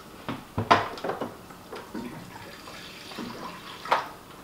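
A few knocks of a dog bowl being handled, the loudest about a second in, and water running from a water cooler's spout into the bowl.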